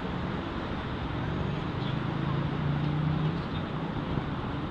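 A steady, low engine drone with a few wavering pitched lines, over a wash of city noise.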